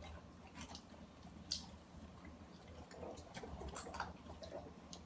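Faint, scattered wet clicks and smacks of a person chewing food close to the microphone.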